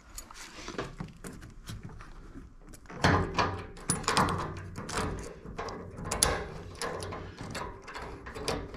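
A compression ring and nut being fitted by hand onto a copper pipe: a run of small metallic clicks and rattles. They grow busier and louder about three seconds in.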